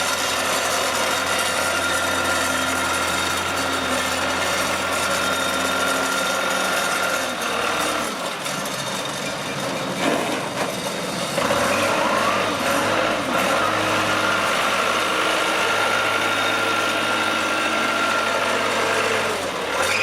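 Case 188D four-cylinder diesel engine of a 1979 Case 480C loader backhoe running with a steady clatter. Its note shifts between about 7 and 12 seconds in, then holds steady again.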